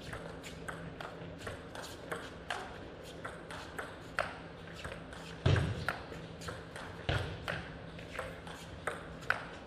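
A long table tennis rally: the celluloid-type ball clicks sharply off the rackets and the table every half second or so, with a few heavier thuds mixed in.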